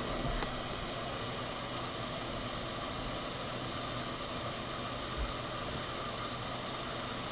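Hot air rework station blowing a steady hiss of air through its nozzle at airflow setting 5 of 8, heating a voltage regulator chip to desolder it. A small low bump about five seconds in.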